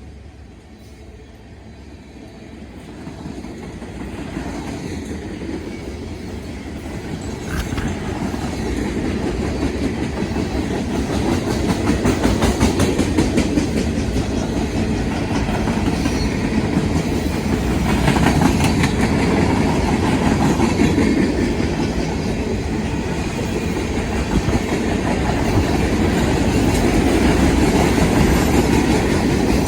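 BNSF freight train rolling past, growing louder over the first dozen seconds as it draws near, then a steady heavy rumble with the wheels clacking over the rail joints.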